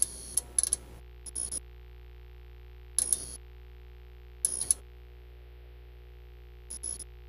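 Logo-intro sound design: a steady low synthesizer drone with about seven short bursts of glitchy static spread through it, several close together in the first second and then a few seconds apart.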